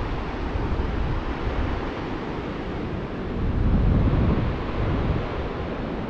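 Wind buffeting the microphone over the sound of Pacific Ocean surf; it swells louder for a second or so about four seconds in.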